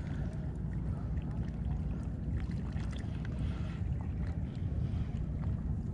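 Steady low rumble of wind on the microphone and the sea, with faint scattered ticks from a Shimano Stradic 4000SW spinning reel being worked while a hooked fish is played on a bent rod.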